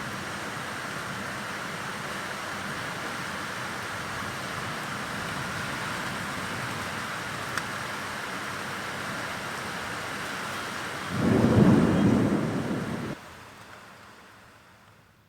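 Heavy monsoon rain falling in a steady hiss. About eleven seconds in, a loud low rumble of thunder lasts about two seconds, then the sound cuts off suddenly and fades away.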